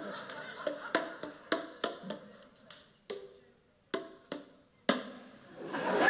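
Boomwhackers, tuned coloured plastic tubes, struck in a rhythmic pattern of short pitched hits, about three a second at first and sparser after about three seconds. Applause starts to rise near the end.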